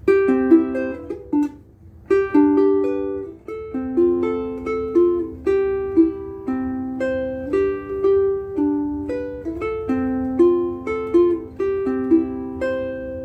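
Kala ASAC solid acacia ukulele strung with Aquila B-Black strings, played unaccompanied: a tune of plucked single notes and chords, each ringing out briefly before the next.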